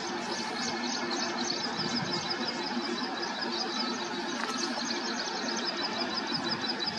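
LHB passenger coaches rolling past on the track, a steady running noise of wheels and coach bodies. A quick, even, high-pitched ticking of about five a second runs through it.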